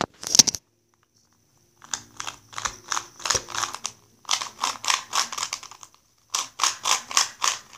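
Rubik's brand plastic 2x2 cube being turned quickly by hand: rapid clacking of the layers in three runs of a second or two, starting about two seconds in.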